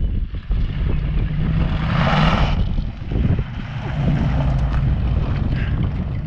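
1969 Ford Mustang engine running as the car drives past on gravel, with a surge of throttle about two seconds in, then pulling away. There is some wind noise on the microphone.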